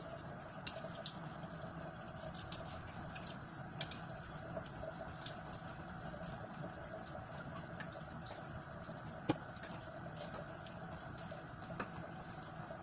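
Thin stream of tap water running into a metal strainer in a kitchen sink, with many small clicks and taps of a knife and fingers cleaning shrimp, and one sharper click about nine seconds in. A steady low hum runs underneath.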